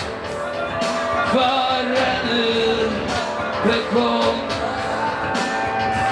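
Live rock band in concert: a male singer singing over electric guitar and drums, with regular cymbal and drum hits, heard through a camcorder's microphone.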